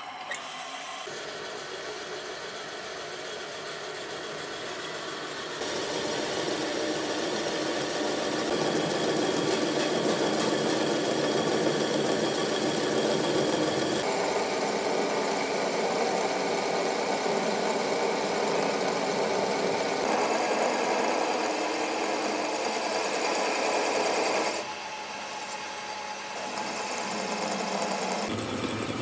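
Machine-shop machinery running steadily, a mechanical hum with cutting noise. It changes abruptly in loudness and pitch several times, at edits between shots.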